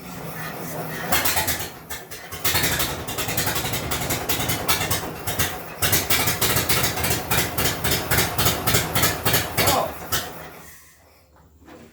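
1924 Dodge Brothers four-cylinder engine turning over and firing on its refitted carburetor, running roughly with a rapid uneven string of pops for several seconds, then dying away near the end. It is close to starting but does not keep running.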